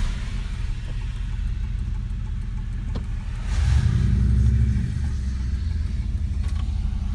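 Car driving on a wet road in the rain, heard from inside the cabin: a steady low engine and road rumble that swells louder for about a second and a half midway as the engine pulls, with a single click a moment before.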